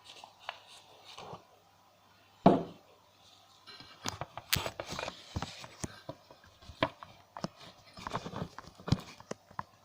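Hand-handling of a home-made electroplating rig: scattered clicks and clinks of clips, wires and the jar. There is one louder knock about two and a half seconds in, then a busy run of small clicks.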